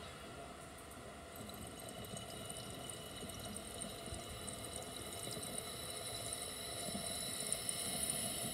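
Water bubbling through the percolator of a glass dab rig as air is drawn through it: a steady bubbling that starts about a second in and cuts off right at the end.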